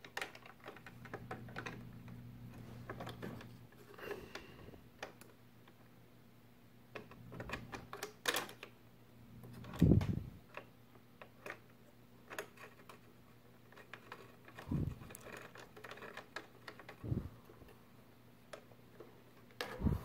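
An NZXT Kraken X52 all-in-one liquid cooler being handled and seated on a CPU inside a PC case: scattered plastic clicks and taps and brief rustling of its braided tubes, with a louder knock about ten seconds in. A low steady hum sits underneath, strongest in the first few seconds.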